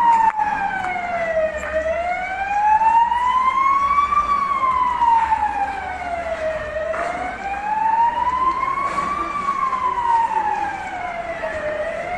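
Emergency vehicle siren in a slow wail, its pitch rising and falling steadily, each full rise and fall lasting about five seconds.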